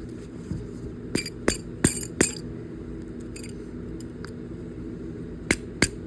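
Sharp metallic taps of a hammer striking the stuck shaft of a garden tractor's hydraulic pump, trying to drive it out. Four quick taps come a little over a second in and two more come near the end.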